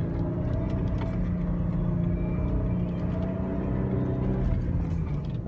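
SUV engine running steadily under load while driving over soft sand dunes, heard from inside the cabin as a low drone with a rumble beneath it.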